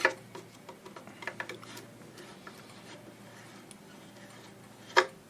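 Screwdriver backing a long chassis-mounting screw out of a valve radio's case: scattered small clicks and scrapes, with a sharper knock at the start and another near the end.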